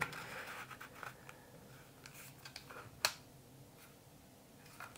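Faint scratching and handling of a Dyson styler attachment in the hands, with small ticks and one sharp click about three seconds in.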